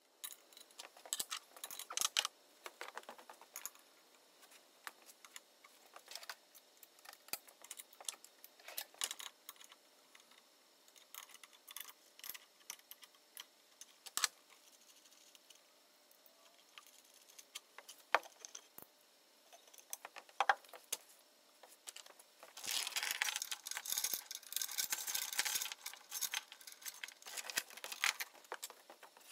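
Irregular light clicks and clinks with a few sharper knocks, then a denser stretch of rattling clatter starting about 23 seconds in and lasting several seconds.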